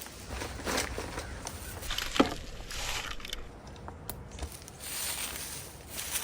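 Irregular rustling and scuffing from a person moving about and handling gear close to a chest-mounted camera, with a sharper click about two seconds in.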